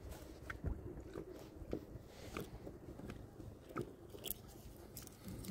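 Faint, irregular small clicks, taps and rustles of gear being handled while someone rummages for a tape measure.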